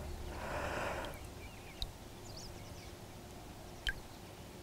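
Water swishing briefly as a released zander swims off, fading within the first second. Then quiet riverbank ambience with a few faint bird chirps and two small sharp clicks.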